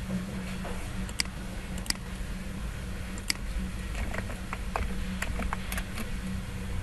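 A few sharp computer mouse clicks, then a quick run of keyboard keystrokes typing a short code about four to six seconds in, over a steady low hum.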